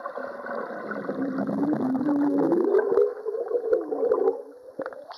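Muffled underwater sound heard through a submerged camera: bubbling and churning water as swimmers move past, with a low wavering tone that rises in pitch midway.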